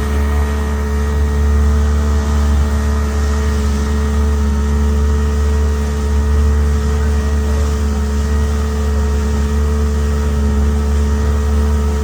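An engine running at a steady speed, with a heavy low rumble and a constant hum of steady tones.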